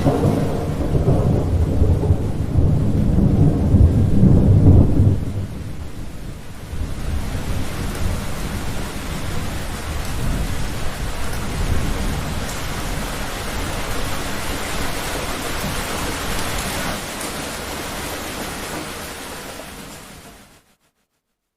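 Thunderstorm: a long, loud rumble of thunder over heavy rain for about the first five seconds, then steady heavy rain alone. The rain fades out shortly before the end.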